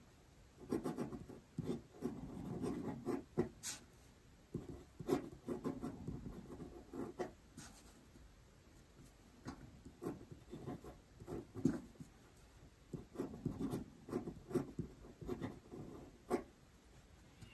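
Pen nib scratching on paper while Chinese characters are written by hand: clusters of short strokes with brief pauses between characters, and a longer pause of about two seconds near the middle.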